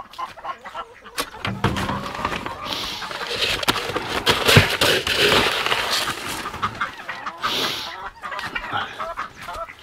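Hens clucking, among scattered knocks and rustling. The loudest, noisiest stretch comes from about three to six seconds in.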